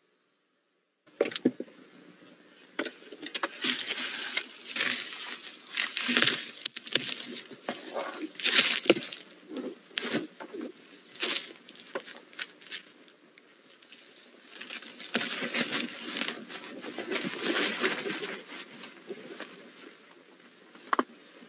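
Barn owl moving about in a wooden nest box: irregular scratching and scraping on the wood and in the shavings, with a few sharp knocks, one near the end.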